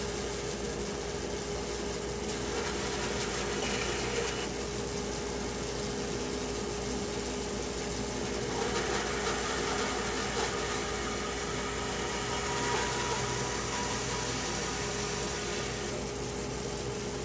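Woodworking machine running steadily with a constant mid-pitched hum, and a little more hiss through the middle stretch.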